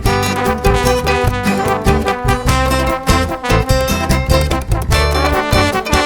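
Background music: an upbeat swing-style piece with brass instruments and a steady beat.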